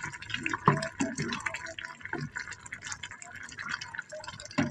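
Goat lungs and offal bubbling in a pan of simmering liquid, the water the washed lungs have let out, with a wooden spatula stirring through it and a few louder strokes against the pan.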